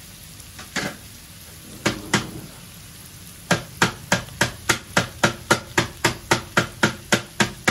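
Knife chopping green chillies on a cutting board: a few separate knocks, then from about halfway through a steady run of sharp knife strikes, about four a second.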